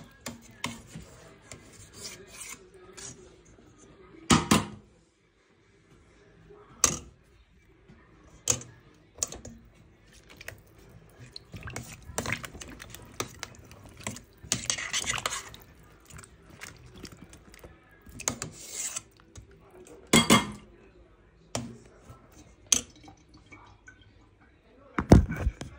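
Sporadic knocks, clinks and clatters of objects being handled, with a few sharp louder knocks and short stretches of rustling noise between them.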